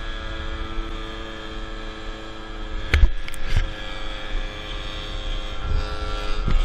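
MBK Booster 50 cc two-stroke scooter, fitted with a Polini kit, running at a steady cruise: an even droning hum with wind rumble on the microphone. A sharp knock comes about three seconds in, followed by a couple of smaller ones.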